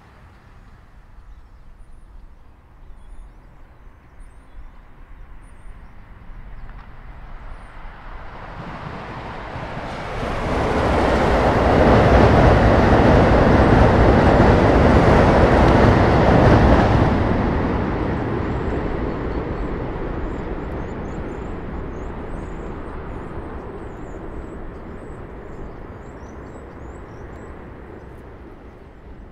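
Amtrak Acela Express train passing at speed: a rushing rail and wheel noise builds over a few seconds, stays loud for about six seconds, then fades away slowly.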